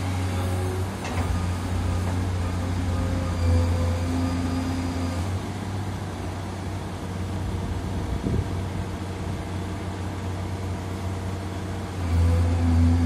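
Liebherr R 944 Litronic crawler excavator's diesel engine running under load as the bucket digs, working harder for a couple of seconds early on and picking up loudly near the end. A couple of short knocks sound over it.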